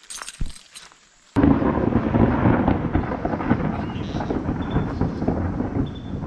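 Thunder rumbling long and low; it begins abruptly about a second and a half in and runs on. Before it come a few light footsteps and one thump.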